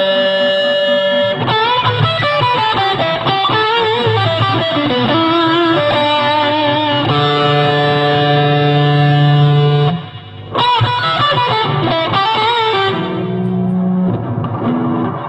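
Electric guitar played through a custom fuzz and experimental reverb pedal, sounding distorted, held notes with wavering, bending pitch. The sound drops out briefly about ten seconds in, then resumes.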